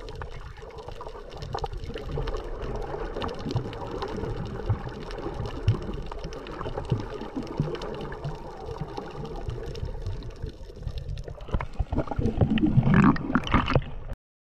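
Underwater recording: a muffled wash of water noise with scattered clicks and crackles, growing louder near the end and then cutting off suddenly.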